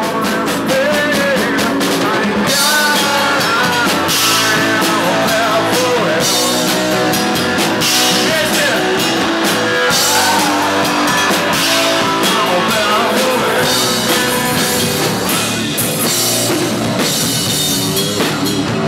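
A live rock band playing loud alternative hard rock: distorted electric guitars, bass guitar and a drum kit with crashing cymbals, with a male singer.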